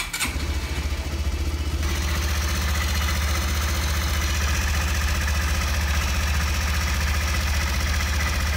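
Honda GROM's 125cc air-cooled single-cylinder four-stroke engine idling steadily, just started after an oil change to circulate the fresh oil. More high-pitched mechanical noise comes in about two seconds in.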